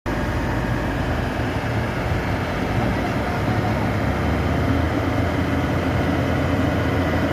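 Heavy farm machinery's diesel engines running steadily, a dense low rumble with no breaks.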